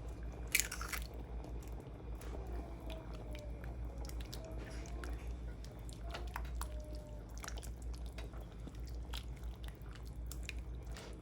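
Someone eating close to the microphone: quiet chewing with many small wet clicks, and one sharper click about half a second in.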